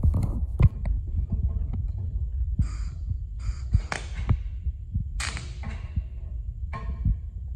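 Arc welder laying several short tack welds, each a burst of crackling under a second long, over a steady low hum.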